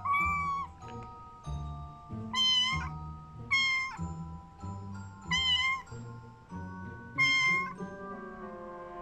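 A kitten mewing five times, short high-pitched calls spaced one to two seconds apart, over background music with held notes and a soft low beat.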